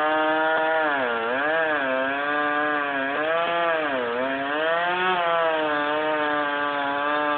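Gas chainsaw running at high revs while cutting wood. Its engine note sags twice under load, about a second in and again around four seconds in, and picks back up each time.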